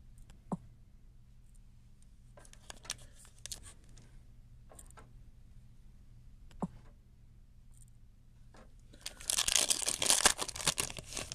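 Foil wrapper of a baseball card pack torn open and crinkled in the hands, a loud burst of crackling about nine seconds in, after a few faint taps and rustles of the pack being handled.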